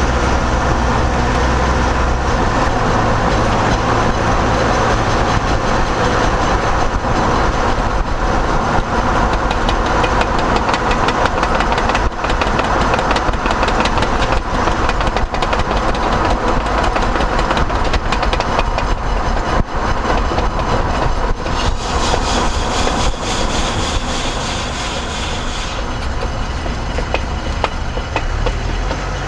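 A vehicle driving with a repeated knocking from a tire, a run of clicks and knocks over steady road noise.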